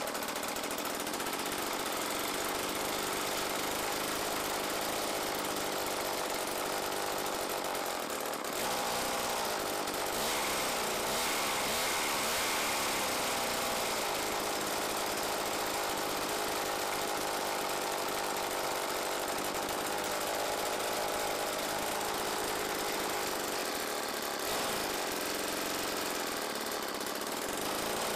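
The Homelite XL 26.2cc two-stroke chainsaw power head on a vintage Cobra chainsaw winch, running steadily after starting. Its pitch wavers for a few seconds about ten seconds in.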